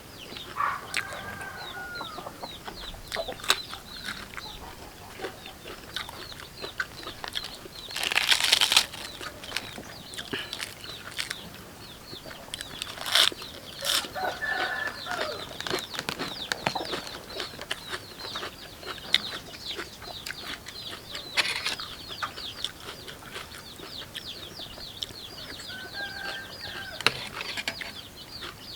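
Chickens clucking now and then over a constant high-pitched chirping, with sharp crunchy chewing clicks of raw vegetables scattered throughout. A brief loud rustling burst comes about eight seconds in.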